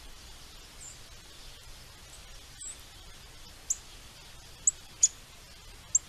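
Sharp, short, high chip calls from small songbirds at the feeders, several of them scattered over the seconds with the four loudest in the second half, over a steady faint outdoor hiss.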